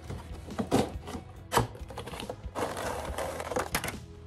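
Cardboard toy box being opened and its clear plastic packaging tray pulled out: a few sharp clicks and taps, then a stretch of scratchy plastic rustling.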